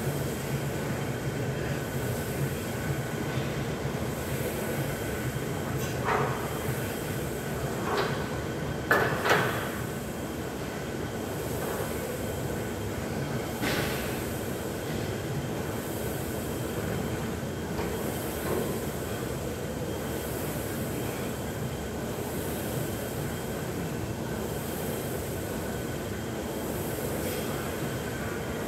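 Steady gym background rumble with a few sharp knocks, like weights being set down, the loudest pair about nine seconds in.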